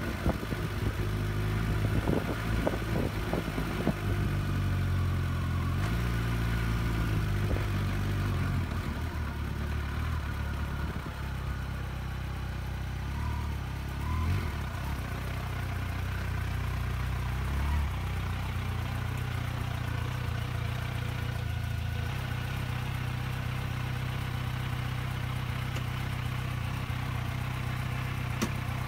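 Kawasaki Versys 1000's inline-four engine running as the bike rolls slowly along and pulls up. From about nine seconds in it settles into a steady idle.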